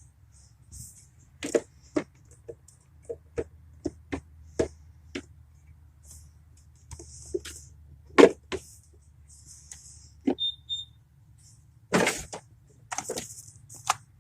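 A series of irregular sharp knocks and clicks, about fifteen in all, with the loudest about eight seconds in and a cluster near the end. Short hissy rustles fall between them.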